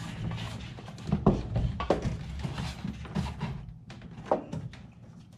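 Irregular knocks and clicks from hands and tools working at a car's interior door panel, over a low handling rumble that fades about four seconds in.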